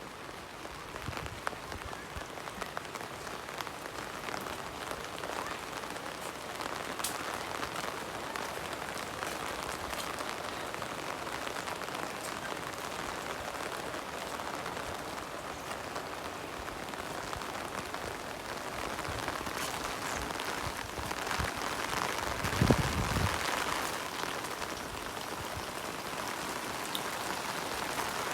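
Steady rain falling, a dense patter of drops. About three quarters of the way through, a brief low thump.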